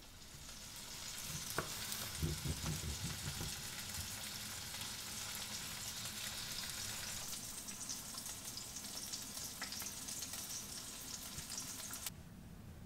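Food sizzling and crackling in a hot frying pan, a steady hiss that cuts off suddenly near the end. A few soft low knocks come about two to three seconds in.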